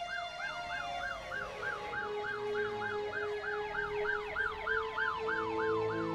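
Emergency vehicle siren sound effect: a fast wail rising and falling about three times a second, overlapped by slower rising and falling siren wails.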